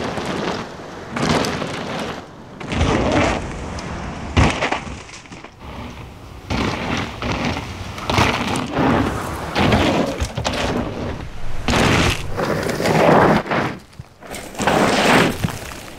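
Mountain bike tyres rolling and skidding on a dirt forest trail as the rider rushes past, a series of noisy passes of about a second each, with a sharp crack about four seconds in.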